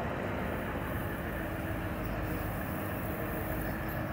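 Mercedes-Benz truck's V8 diesel engine running steadily.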